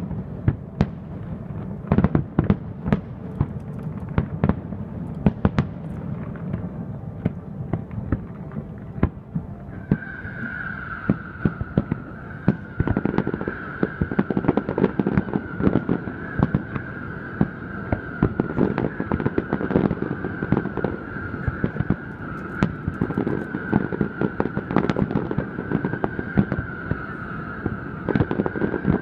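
Fireworks display heard from afar: a rapid, irregular series of bangs and crackling reports from bursting aerial shells. About ten seconds in a steady, slightly wavering high tone comes in and holds under the bangs.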